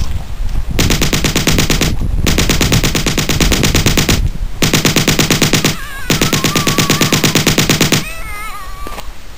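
Machine-gun sound effect firing in four long rapid bursts with short gaps between them. A wavering high tone comes in near the end and runs on past the last burst.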